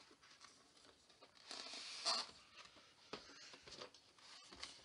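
Paper sheet and box packaging rustling and scraping as they are pulled and handled, with a longer rustle about one and a half seconds in and a few light clicks and scrapes after.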